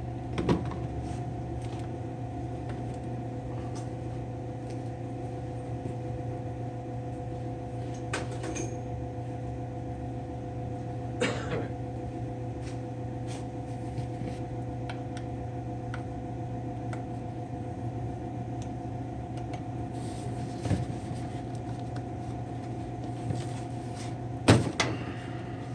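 A steady motor hum with a few short knocks of tool work, about four of them spread out.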